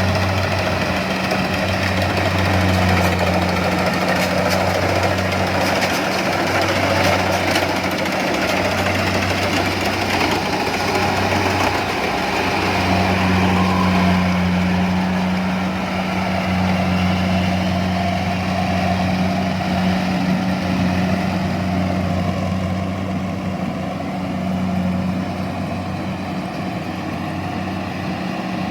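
Engine of rice-harvesting machinery running steadily, with a low hum and a dense mechanical clatter.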